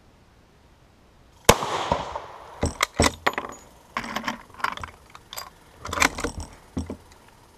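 A single shot from a Lebel Model 1886/93 rifle in 8x50R Lebel, about one and a half seconds in, with a ringing tail. It is followed by a run of sharp clacks and clicks over the next few seconds.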